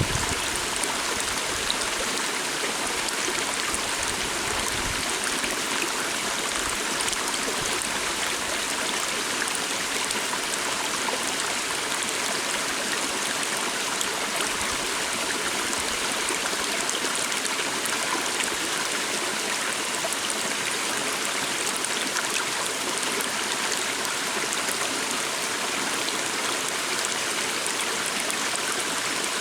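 Calm forest stream flowing, a steady, even rush of water.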